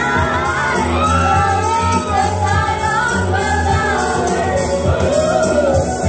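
A group of women singing along into a microphone over a backing track with a steady beat and bass line, with shouts mixed in.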